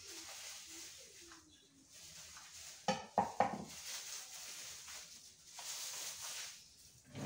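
Disposable plastic gloves rustling and crinkling as they are pulled and smoothed on the hands, with a brief clatter of a few sharp knocks about three seconds in.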